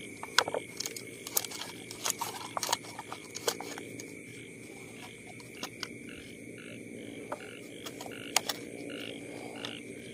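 Frogs calling in a chorus of short, evenly repeated croaks, about two a second, growing plainer through the second half, over a steady high whine. Sharp clicks and crackles of a clear plastic bottle being handled break in at times.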